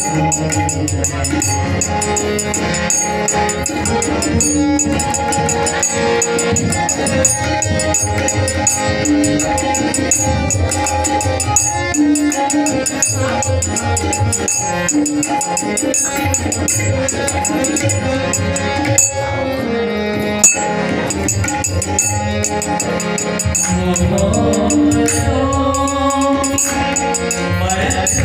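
Ghazal played on harmonium and tabla: the harmonium's held reedy chords over a steady tabla rhythm, with a man's singing voice heard in places, most clearly near the end.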